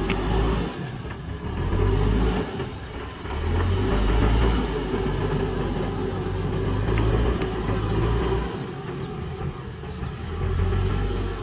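JCB backhoe loader's diesel engine working under load as it digs. It runs with a low rumble that swells and eases every two to three seconds as the load comes and goes.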